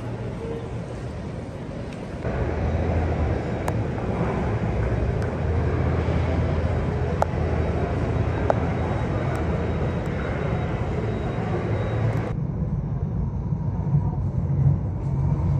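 Jet airliner engines running, a steady rumble and rush. The sound gets louder abruptly about two seconds in and changes character suddenly near the end.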